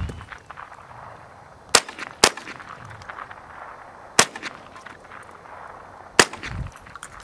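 Smith & Wesson M&P15-22 semi-automatic rifle firing .22 Long Rifle rounds: four single shots, the first two about half a second apart, then two more each roughly two seconds after the last.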